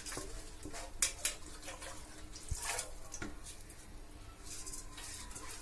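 Large pot of spiced water boiling on the stove with soaked basmati rice just added, bubbling with a steady watery noise and a few small pops, the clearest about a second in.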